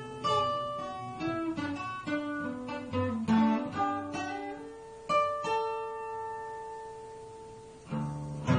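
Acoustic guitar playing a picked melody of single notes, one after another. About five seconds in, a note is left ringing and slowly fades for a few seconds, then strummed chords start near the end.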